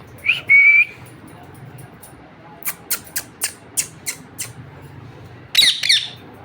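Ringneck parrot calling: a short squawk with a rising then held whistle-like note about half a second in, then a run of sharp clicks, and a second burst of harsh squawking near the end.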